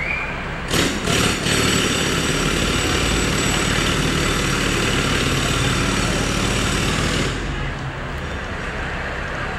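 Roadworks machinery at night: an engine runs steadily underneath while a loud, harsh machine noise starts with two short bursts about a second in, holds for about six seconds, then stops.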